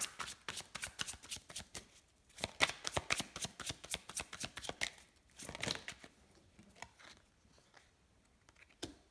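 A deck of oracle cards shuffled hand to hand, in quick runs of crisp card flicks that thin out after about six seconds. Near the end a single card is laid down on the table with a soft click.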